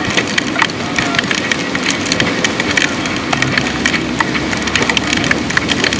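Storm wind buffeting the microphone, with a dense crackle of rain and spray striking it.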